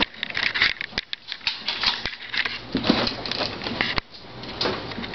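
Airsoft gunfire: a scatter of small clicks and taps over rustling, with three sharper cracks about one, two and four seconds in, as BBs are fired and strike nearby surfaces.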